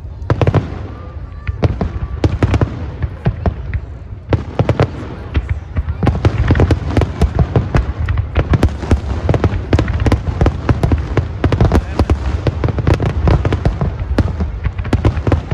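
Fireworks going off in a rapid string of bangs and crackles over a low rumble, growing denser about six seconds in.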